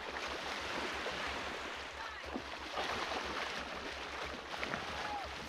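Shallow surf water splashing and sloshing as a large shark thrashes and is dragged by the tail through the wash at the water's edge.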